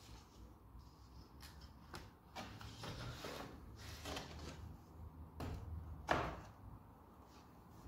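Objects being handled: scattered knocks and clicks with some brief scraping, and one sharper knock about six seconds in.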